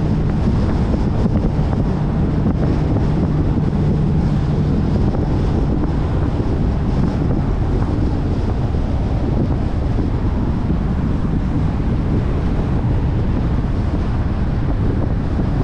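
Steady wind noise on a car-mounted GoPro's microphone, over the low steady drone of a Dodge Challenger R/T's 5.7-litre HEMI V8 cruising slowly. The engine note is plainest over the first few seconds.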